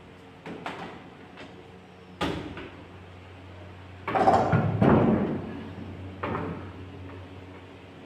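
Knocks and thumps of a double-door refrigerator being shifted into place on a tiled floor, with a louder stretch of bumping about four seconds in.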